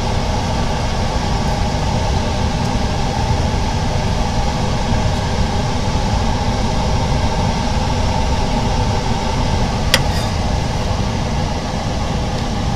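Steady mechanical hum of running workshop machinery, with one sharp click about ten seconds in.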